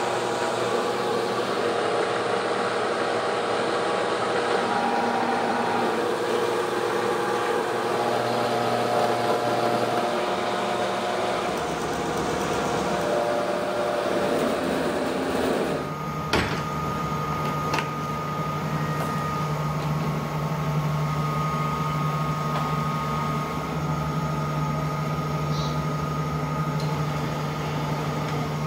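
Plastic recycling machinery running with a steady mechanical drone. About halfway through the sound shifts to a steadier hum with a constant whine, and a couple of sharp knocks come soon after the change.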